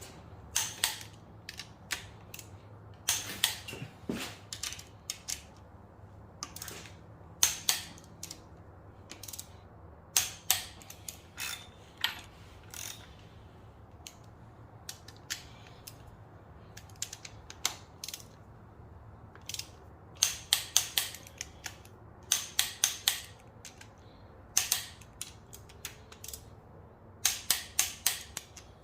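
Click-type torque wrench ratcheting on cap bolts, in scattered sharp clicks and short runs of rapid clicks as the bolts are run down to 265 inch-pounds.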